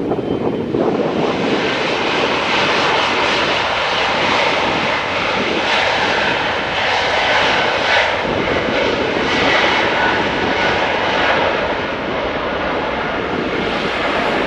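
Boeing 777-300ER's twin GE90-115B turbofan engines running at taxi power as the jet rolls slowly past: a steady loud jet rush with a thin high whine.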